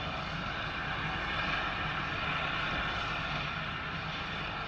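Steady hiss of steam escaping from the open cylinder drain cocks of Stepney, a Stroudley 'Terrier' 0-6-0 tank locomotive.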